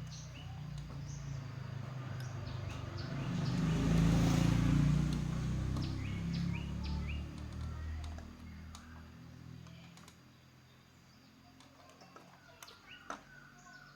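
A motor vehicle passes by, its engine rumble growing to a peak about four seconds in and fading away over the next few seconds, while small birds chirp.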